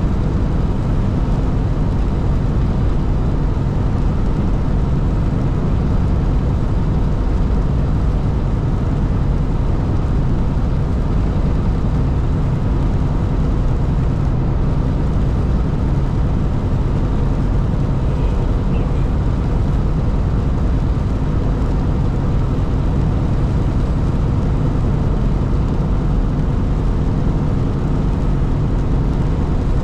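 Steady engine drone and road noise heard inside a truck's cab at highway speed, even throughout with no sudden sounds.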